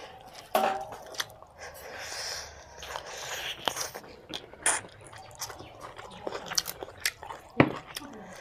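A person eating mutton curry and rice by hand, close to the microphone: wet chewing with irregular sharp smacks and crunches. The loudest smack comes near the end.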